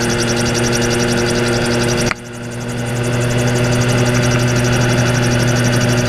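Gyrocopter engine and rotor running steadily in cruise flight, heard from the open cockpit with a fast pulsing rush of air. About two seconds in the sound suddenly drops in level and swells back over a second or so, with no change in engine speed.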